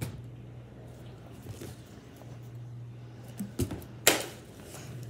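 Handling noise from a plastic water bottle and a handheld phone: a few soft knocks and rustles, with one brief, louder crackle about four seconds in, over a steady low hum.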